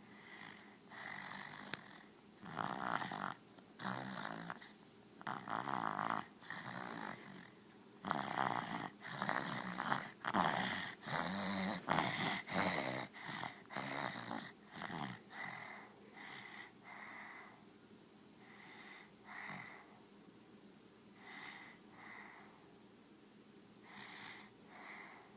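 Snoring: a quick run of short, rasping snores, loudest and most frequent through roughly the first half, then growing softer and sparser toward the end.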